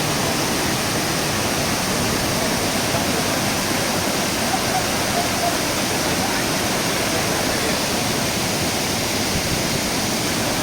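Kravica waterfalls on the Trebižat river: a steady, loud rush of falling water that does not change.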